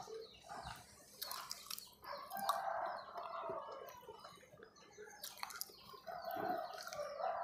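Chickens calling faintly in the background, two calls of about a second each, one near the middle and one near the end, with soft clicks of chewing in between.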